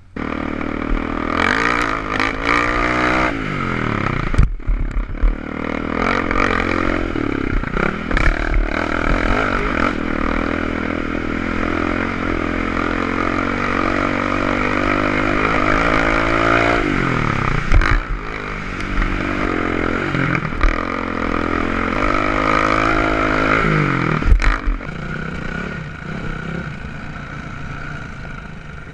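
Off-road vehicle engine heard from a rider's helmet camera, its pitch rising and falling repeatedly as the rider accelerates, shifts and backs off over a dirt track, over a steady rush of noise. A few sharp knocks and clatters come through along the way.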